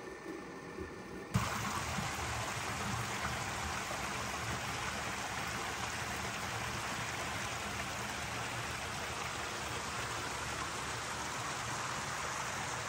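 Steady rush of flowing water that starts abruptly about a second in, after a few soft thumps.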